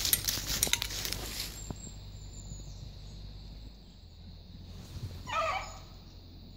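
Footsteps crashing through dry leaf litter and undergrowth for the first second and a half, then one short bark from a beagle about five seconds in.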